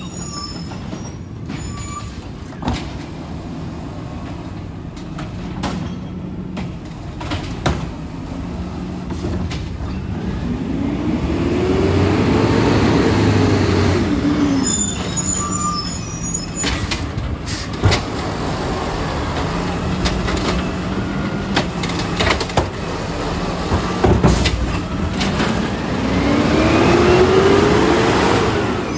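Recycling truck's engine running steadily, then revving up and back down twice, each rev lasting a few seconds, as it drives the truck's hydraulics. Several sharp knocks are heard along the way.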